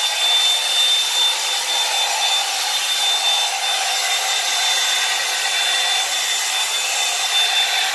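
Revlon One-Step Hair Dryer & Volumizer, a hot-air brush dryer, running steadily: a constant rush of blown air with a thin high whine from its motor.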